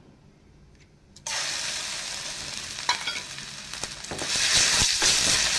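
Ginger-garlic paste sizzling in hot oil in a nonstick pan. The sizzle starts suddenly about a second in as the paste hits the oil and grows louder about four seconds in as it is stirred, with a few light taps.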